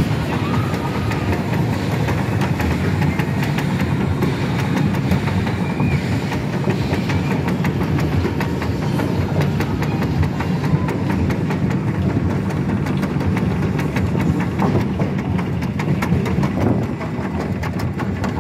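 Schwarzkopf Jet Star roller coaster car climbing the lift: a steady low mechanical drone with a fast, continuous clatter of clicks from the track and lift, the clicks growing denser in the second half.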